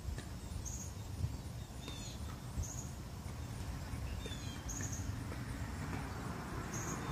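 Wind buffeting the microphone, a low rumble, with a few faint bird chirps and a faint high chirp repeating about every two seconds.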